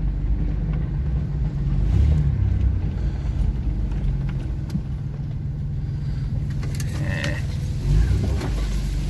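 Engine and road noise of a 1989 Chevy S10 Blazer's 4.3 V6, heard from inside the cabin while driving, with a steady engine note.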